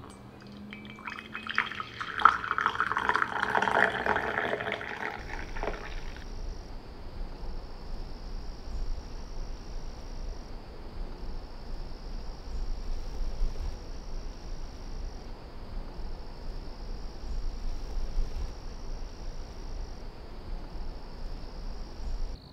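Coffee poured from a glass carafe into an enamel mug, a splashing, trickling pour lasting about four seconds and stopping about five seconds in. After it, a steady low rumble and hiss.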